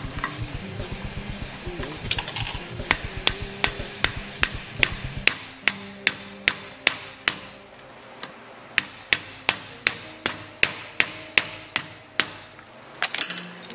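A run of sharp, evenly spaced taps or knocks, about three a second, with a brief softer stretch in the middle. Music plays underneath.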